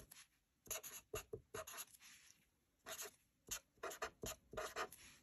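Felt-tip marker writing on paper: faint, short strokes in quick clusters with brief pauses between letters.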